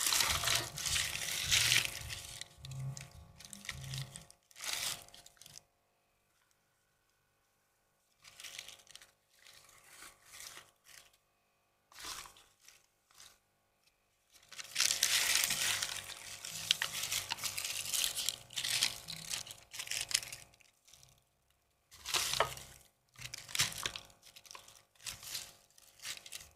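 Handling noise: crinkling and rustling in three bursts, near the start, in the middle and near the end, with quiet gaps between.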